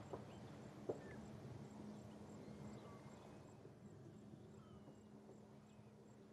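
Near silence: faint steady background tone, with two soft clicks in the first second.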